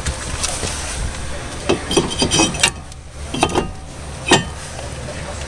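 Metal clinks and light knocks as a Toyota Camry front brake rotor is fitted over the wheel studs onto the hub: a quick run of clinks, then two more single clinks, the last one the loudest.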